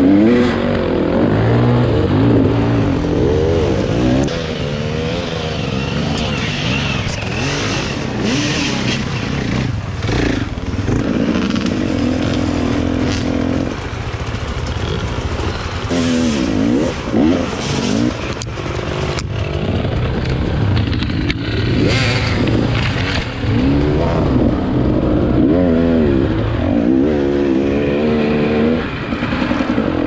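Enduro dirt bike engine revving up and down over and over, with clattering and scraping knocks in between.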